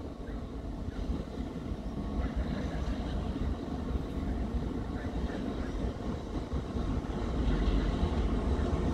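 Low, steady rumble of a diesel-hauled passenger train running behind D9E-211, a D9E diesel-electric locomotive; it grows louder near the end.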